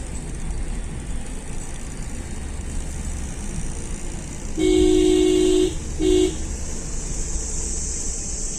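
Car horn sounded twice, a long blast of about a second and then a short one, over the steady road and engine noise of a car driving on a winding hill road.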